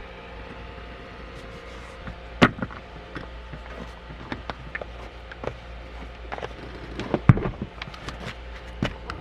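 Scattered sharp clicks and knocks, the loudest about two and a half seconds in and a cluster around seven seconds in, over a steady low hum.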